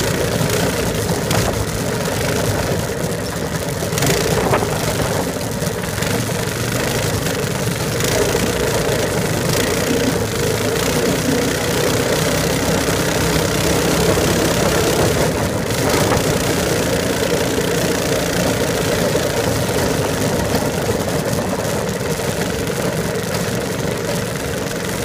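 A small engine running steadily at an even, low speed throughout, with a constant hiss over it.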